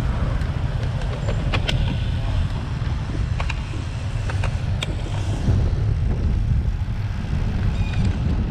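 Wind rumbling on the microphone of a road bike in motion, mixed with tyre and road noise, with a few sharp clicks.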